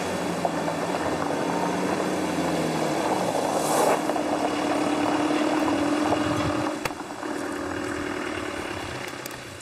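An engine running, with a steady low hum, growing louder to a peak about four to six seconds in and then fading.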